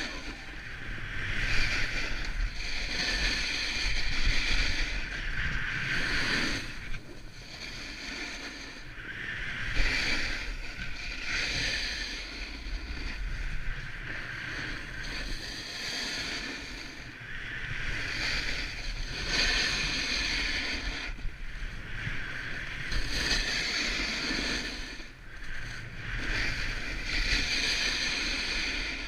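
Hissing scrape of edges carving across packed snow on a downhill run, swelling with each turn every couple of seconds. Underneath is a low rumble of wind on the helmet camera's microphone.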